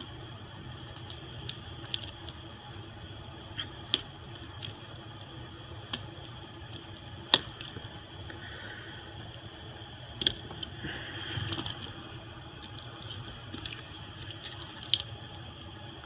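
Scattered small sharp clicks and taps of tools and fingers working on an iPhone SE as its screen is taken out, over a steady low background hum.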